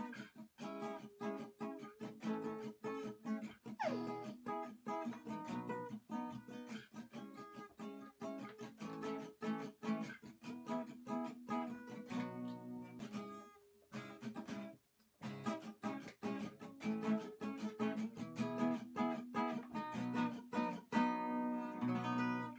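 Acoustic guitar played by hand, a steady stream of plucked notes and chords, with a brief break about two-thirds of the way through before the playing resumes.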